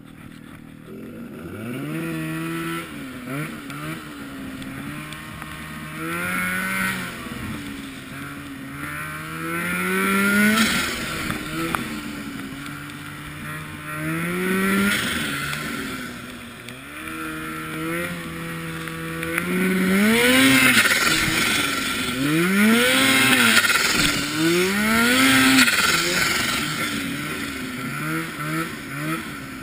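Snowmobile engine revving up and down over and over as the sled works through deep powder, its pitch climbing and falling every few seconds. A hiss rises with each burst of throttle.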